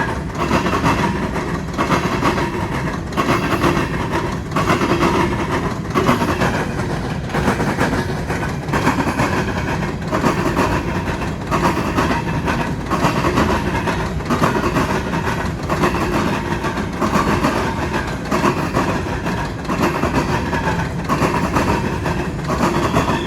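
Norfolk Southern grain train of covered hopper cars rolling past, its wheels clacking over the rail joints in a steady rhythm about once a second over a continuous rumble.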